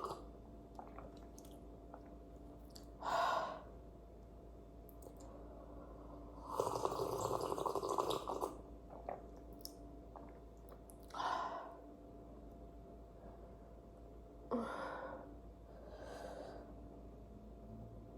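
A woman's breathing and mouth sounds: several short, breathy exhales spaced a few seconds apart, with one longer, rougher noise of about two seconds near the middle.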